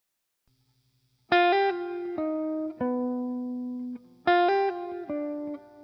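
Background music: a short phrase of plucked guitar notes, each ringing out, that starts about a second in and repeats about three seconds later.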